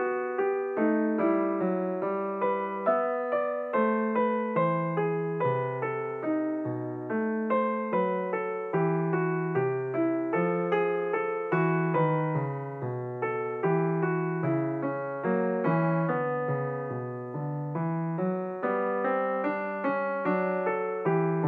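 Solo piano music: a steady flow of notes with a regular pulse and a bass line moving underneath.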